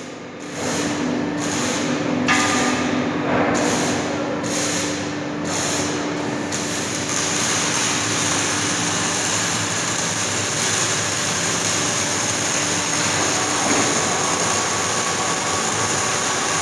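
Hydraulic drive of a telescopic yacht crane running steadily as the boom is retracted and lowered: a continuous mechanical hum with a steady tone, a couple of light knocks in the first few seconds, and a higher tone taking over about 14 seconds in.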